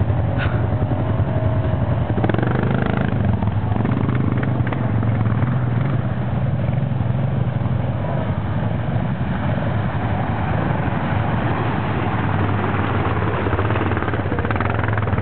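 ATV (quad) engines running with a steady low drone as quads ride slowly along a muddy trail.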